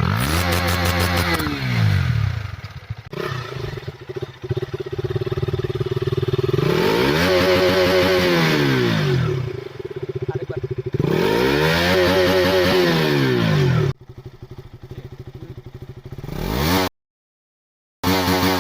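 Small single-cylinder motorcycle exhaust, revved up and let fall back about three times with idling in between. Near the end the sound cuts out briefly.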